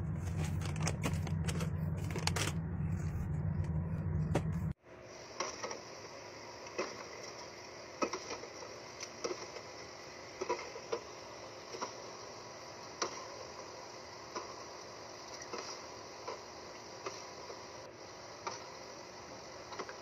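Plastic snack bags crinkling and being set down over a low hum. After a sudden cut about five seconds in, aluminium soda cans are set one by one onto a mini-fridge shelf with scattered light taps and clinks.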